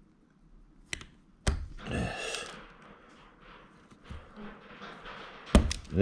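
Combination pliers snipping and working electrical cable: sharp snips about a second in and again near the end, with a brief rustle of wire and insulation between them.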